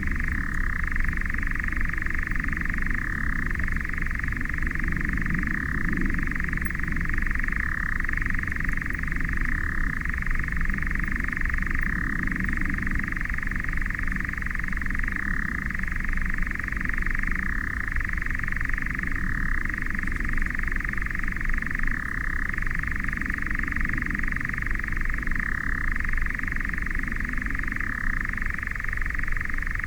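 European nightjar churring: one unbroken, even reeling trill that shifts briefly in pitch every couple of seconds, over a steady low rumble.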